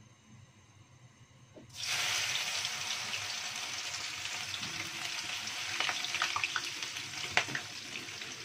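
Dried anchovies (ikan teri) tipped into already-hot cooking oil in a wok. About two seconds in they catch with a sudden loud sizzle that runs on steadily, with scattered pops and crackles.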